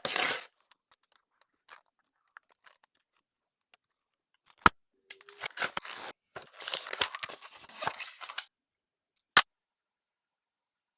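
Packaging being opened by hand: a short rustle, a few faint ticks, a sharp snap, then a few seconds of tearing and crinkling, and a second sharp snap.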